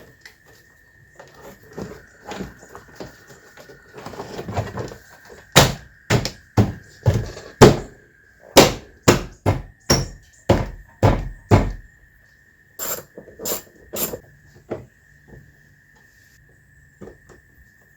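Door card on a car door being struck home with the hand: a run of sharp thumps, loudest in the middle at about two a second, with scattered knocks after. A steady high tone runs underneath.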